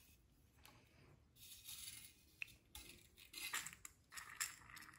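ARP head stud being run down into the engine block's threaded hole with a hex bit on a ratchet: a faint, intermittent scratchy, hissing nasty noise from the threads. The owner puts it down to the stud's nipple tip pushing out the air pocket at the bottom of the hole.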